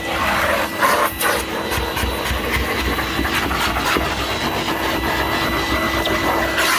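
Numatic Henry cylinder vacuum cleaner running steadily, a constant motor whine over the rush of suction air. Its nozzle scuffs against the stair carpet a few times in the first second or so.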